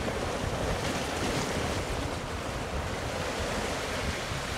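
Wind buffeting the microphone over a steady wash of sea, with no whistle or other distinct sound.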